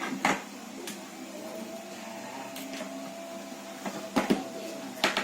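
Handling of cardboard packaging during an unboxing: a few scattered knocks and clicks, closer together near the end, over a faint steady hum.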